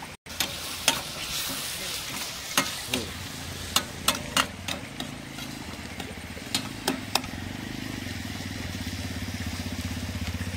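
Poha stirred and fried in a metal frying pan over a wood fire: a light sizzle, with the spoon knocking against the pan a dozen or so times. A low engine hum comes in about four seconds in and grows louder toward the end.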